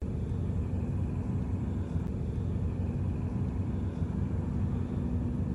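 Steady low rumble of outdoor background noise, with nothing sudden in it.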